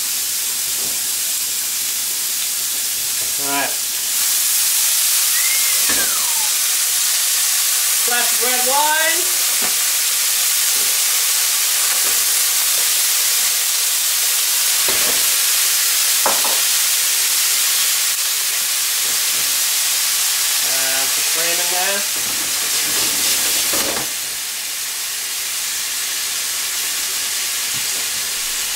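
Ribeye steaks sizzling hard in a hot frying pan. About four seconds in the sizzle grows louder and steamier as red wine goes into the pan for a pan sauce, and it settles a little quieter near the end.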